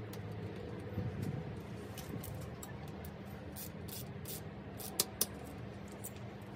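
Small clicks and taps of hand tools on a bicycle rear derailleur, a screwdriver and a small ratchet, with two sharper clicks close together about five seconds in, over a steady low hum.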